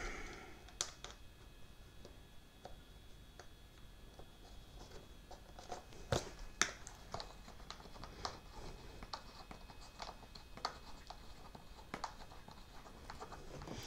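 Faint, scattered small clicks and taps of hands working small hardware: a control horn being fitted onto a screw through an RC plane's elevon and turned with a small screwdriver.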